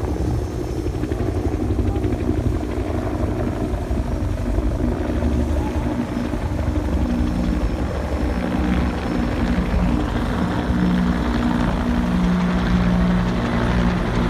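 A formation of five military helicopters flying overhead, their rotors and engines making a steady drone that grows louder as they come closer.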